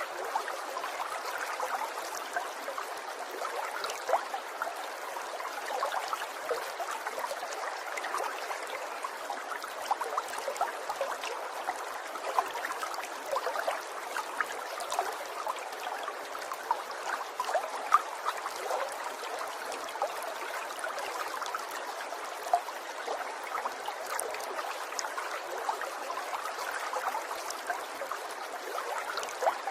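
Small stream of water trickling and gurgling steadily, with many small splashes and a few louder drips scattered through.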